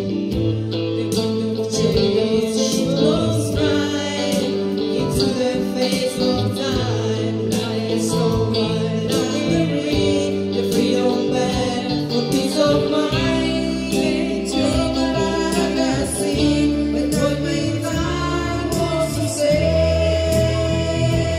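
Live band rehearsal: two women singing together through microphones over electric guitar and keyboard.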